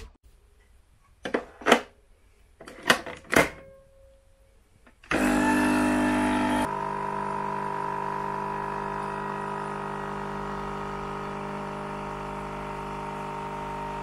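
A few clicks and knocks at a capsule coffee machine, then its pump starts about five seconds in, louder for the first second and a half, and runs on with a steady hum while it brews coffee into the mug.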